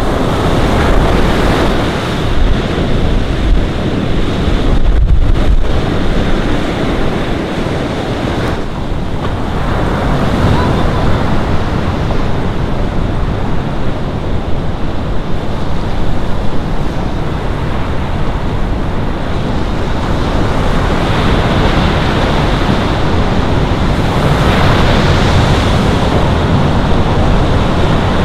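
Ocean surf washing and churning in a steady rush, with wind buffeting the microphone.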